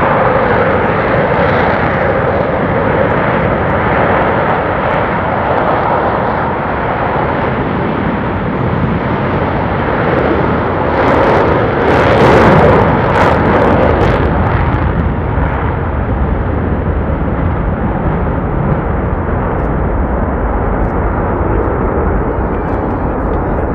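Blue Angels Boeing F/A-18 Super Hornet jets taking off, a continuous loud jet roar that swells with crackling about halfway through as a jet passes close, then carries on as the formation climbs out.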